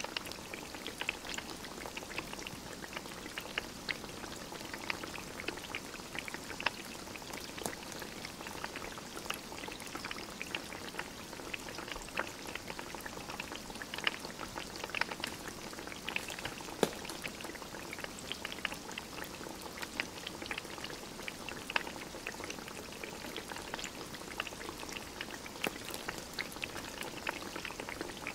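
Small wood stove fire crackling with frequent sharp pops, over a steady bubbling hiss of food simmering in a pot.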